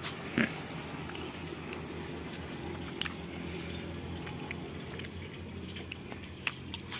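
Room tone in a small enclosed shop: a steady low hum with a few short, sharp clicks.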